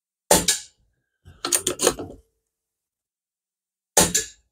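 An air rifle fires once, its action is cycled with a quick run of three or four metallic clicks, and it fires again near the end.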